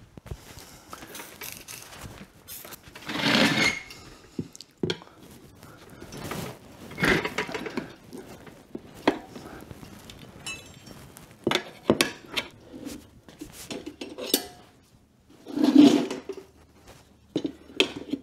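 Metal tire levers clinking and scraping against a dirt bike's rear wheel rim during a tubeless tire change, with scattered sharp clicks and a few louder stretches, each under a second long.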